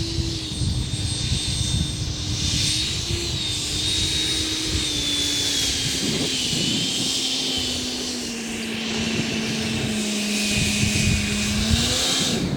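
Electric ducted fan of a 12S-powered RC jet running with a steady whine that slowly falls in pitch, over a rough low rumble; the pitch rises briefly just before the sound cuts off near the end.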